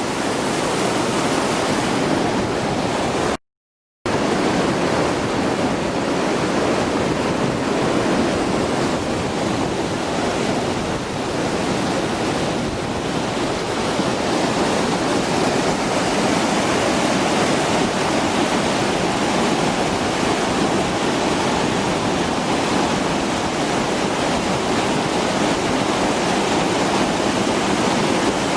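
Steady rush of fast-flowing mountain river water. It cuts out completely for about half a second a few seconds in.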